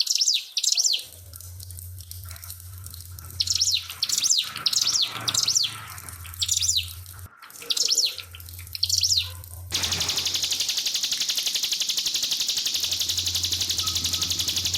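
Ciblek pinus singing in repeated short bursts of high chirps over a low steady hum. About ten seconds in, the song gives way abruptly to a dense, continuous high buzzing rattle.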